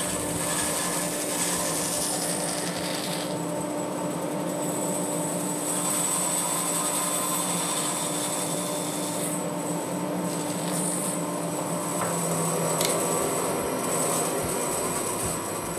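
Band saw running steadily, its blade cutting through a thick hardwood block, with the hiss of the cut changing a few times as the block is fed.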